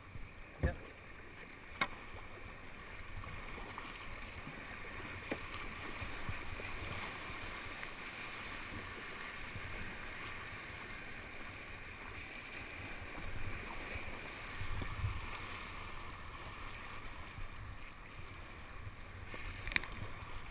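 Rushing river water through a small whitewater rapid, heard from a kayak, with splashing paddle strokes. A few sharp knocks stand out, twice near the start and once near the end.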